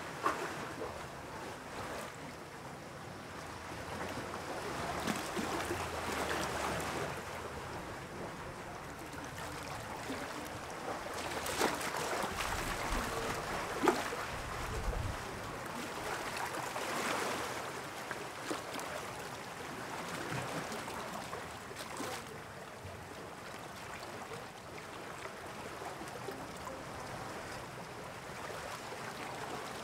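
Sea waves washing in with wind, the rush of water swelling and fading every five or six seconds. A sharp knock stands out about fourteen seconds in.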